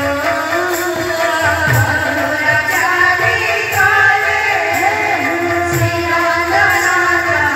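Live kirtan music: a woman singing a devotional song into a microphone over a hand-played barrel drum, with a regular high percussion stroke about once a second.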